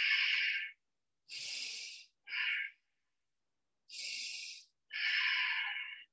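A woman breathing deeply in and out through the nose, a run of slow, audible breaths each lasting about a second, with silent gaps between them.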